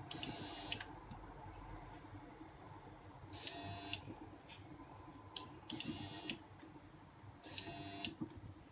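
Small electric motor whirring in four short bursts of about half a second each, with a click as each burst starts and stops.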